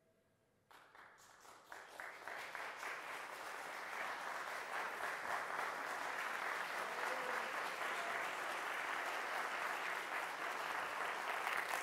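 Audience applauding: a few scattered claps start under a second in and swell into full, steady applause within a few seconds.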